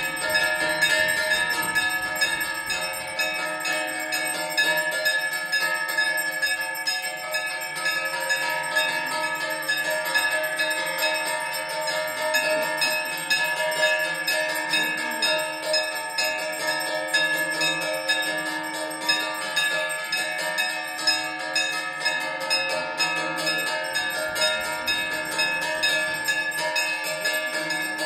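Temple bells rung rapidly and without pause, many ringing tones overlapping into one continuous peal, as during an aarti.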